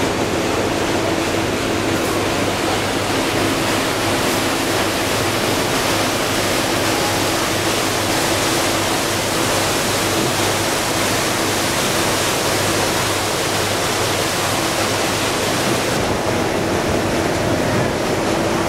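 River cruise boat under way: a steady rush of water from its hull and wake, with a low engine hum underneath.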